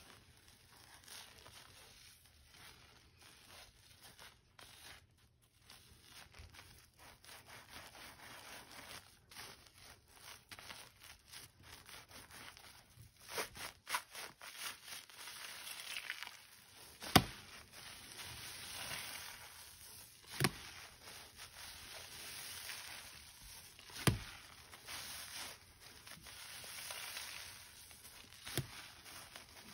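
Soaked, soapy sponge being squeezed and worked by hand: wet crackling and squelching of the foam with rubbing noises, and four sharp clicks in the second half, the first of them the loudest.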